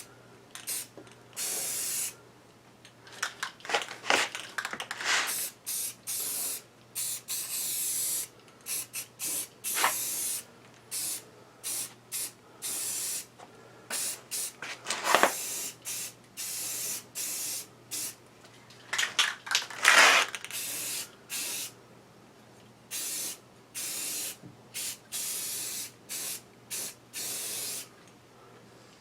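Spray paint hissing on and off in many short bursts, some a little longer, each stopping sharply, as lathe parts are painted.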